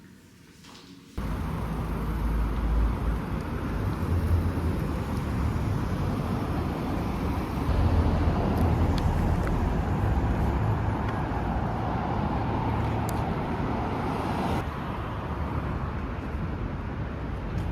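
Steady street traffic noise with a deep rumble, cutting in suddenly about a second in.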